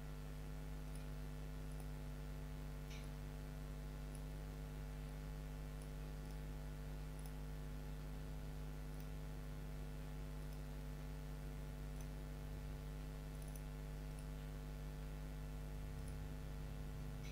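Faint computer mouse clicks, a few scattered a second or two apart, over a steady low hum.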